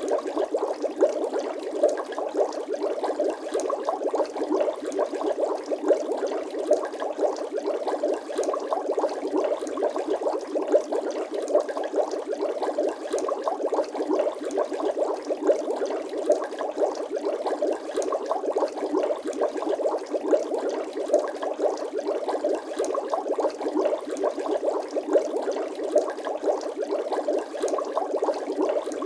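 Bubbling water sound effect: a dense, steady stream of small bubbles popping.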